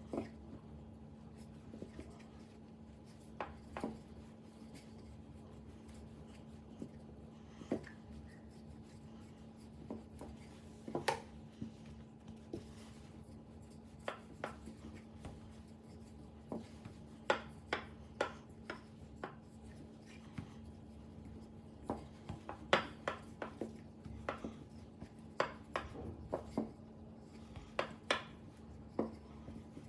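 A rolling pin working bread dough on a floured board: soft rubbing with scattered light knocks, some in quick runs, over a steady low hum.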